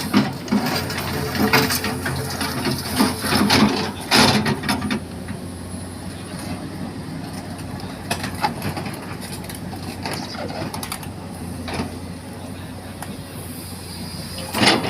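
Komatsu excavator's diesel engine running steadily under work, with clanks and scrapes from the bucket working the mud, heaviest in the first five seconds and again at the end.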